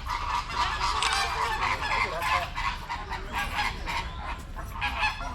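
A flock of flamingos calling, many short honks overlapping without a pause.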